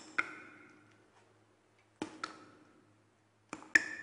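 Sharp clicks in pairs, a double tap about every one and a half to two seconds, each leaving a brief ringing tone at the same pitch.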